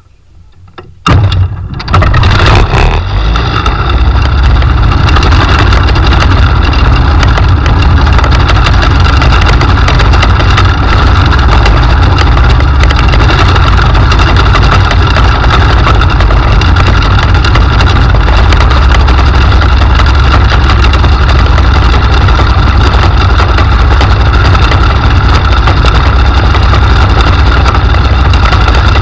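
Ultralight trike aircraft's engine starting about a second in, catching after a brief stutter, then running loud and steady.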